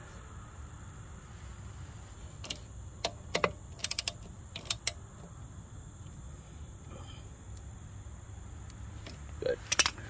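Socket ratchet clicking in short, separate spurts as the rear brake caliper bolts are tightened, with a metallic clink just before the end, over a steady low background hum.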